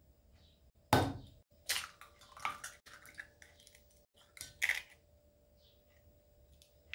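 Raw eggs being cracked into a glass measuring cup: a crisp crack of eggshell about a second in, then the shell being pulled apart and the egg dropping wetly into the glass, and another crack a few seconds later.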